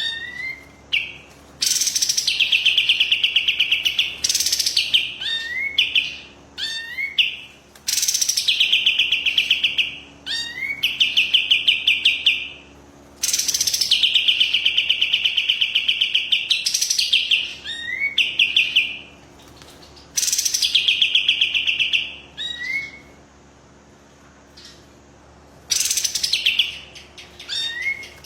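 A kapas tembak songbird singing vigorously: repeated bursts of rapid, high trilled notes, each phrase lasting a second or two, with short rising chips between phrases.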